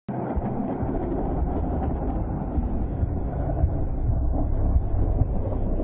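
A steady, dark, low rumble with irregular deep thuds underneath, from a horror-style soundtrack.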